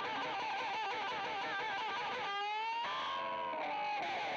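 Electric guitar music with wavering, vibrato-laden notes. A little past halfway it slides into a long held note that rings on toward the end.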